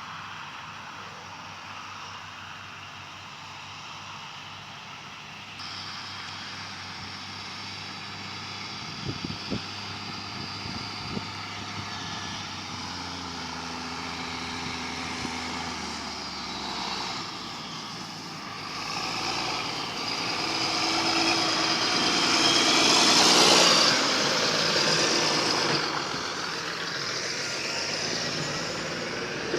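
Diesel engine of a large John Deere farm machine running steadily. It grows louder to a peak about two-thirds of the way through, then eases off, with a few short knocks about nine to eleven seconds in.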